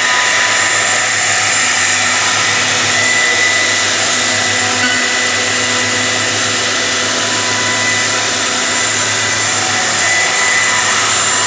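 CNC router's high-speed electric spindle (a HITECO unit) running steadily while its bit carves a relief into a wooden panel: a constant high whine over a rushing cutting noise.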